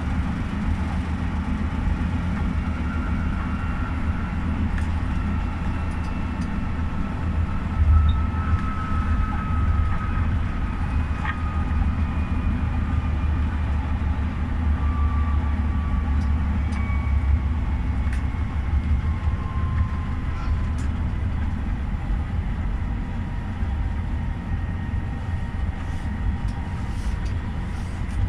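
GEC-Alsthom TFS tram running along its track, heard from the driver's cab: a steady low rumble with a thin electric whine that slowly falls in pitch.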